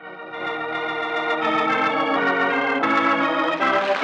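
Organ music bridge: sustained chords swell in and shift a few times, closing a dramatic scene in the radio play.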